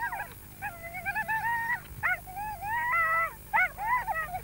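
A dog whining in long, high-pitched cries, then giving a few short yelps near the end. It is the eager whining of a coursing dog held back by its collar while others run a hare.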